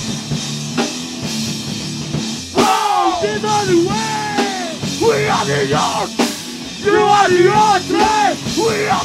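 A rock band playing loudly live: drum kit, electric guitars and bass, with repeated rising-and-falling pitched phrases over a held low note and cymbal crashes about a second in, near the third second and after six seconds.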